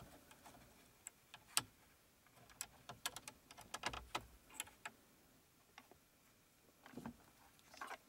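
Faint scattered small clicks and taps as a USB charging cable is handled and plugged into a car charger and an iPhone is handled.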